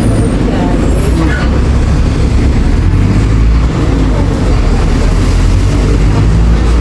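City bus engine and road noise heard from inside the passenger cabin: a steady low rumble while the bus drives.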